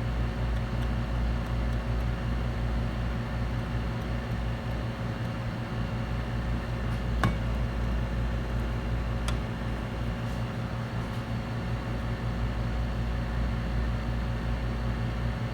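A fan or blower running steadily, a low hum with an even hiss over it, with two faint clicks about seven and nine seconds in.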